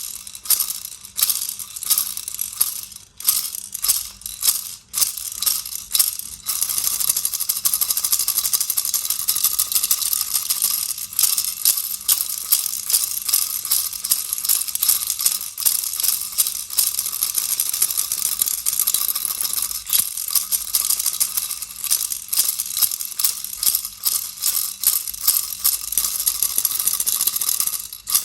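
Baby's toy rattle shaken by hand: separate shakes with short pauses for the first six seconds or so, then continuous rapid shaking.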